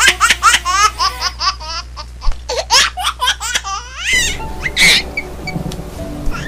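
High-pitched, baby-like giggling laughter in quick repeated bursts, then background music starting about four seconds in.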